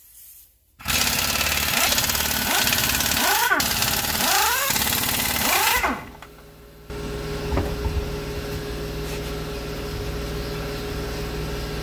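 Pneumatic impact wrench hammering the truck's lug nuts loose, which were torqued to 115 ft-lb, with several rising whines as each nut breaks free and spins off. After a short pause, a steadier, quieter motor hum follows.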